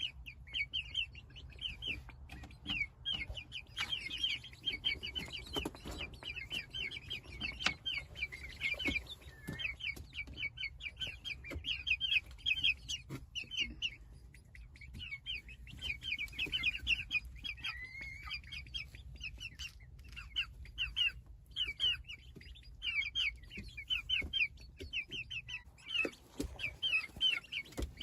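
A brood of chicks peeping continuously: many short, high-pitched peeps several times a second, with a faint low hum underneath.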